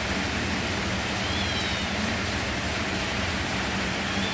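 Steady rain falling, a constant even hiss, with a faint high chirp about a second and a half in.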